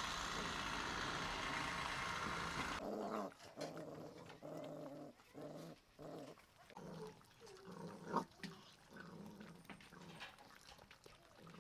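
Rottweiler puppies growling in short, repeated rumbles while they chew raw fish, with wet chewing clicks between them and one sharp click about eight seconds in. This is food guarding over a high-value food. A steady hiss fills the first few seconds and cuts off abruptly.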